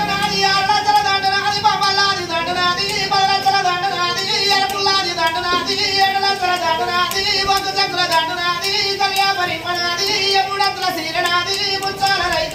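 A high voice singing a slow melody, holding long notes and sliding between them, with faint ticking behind it.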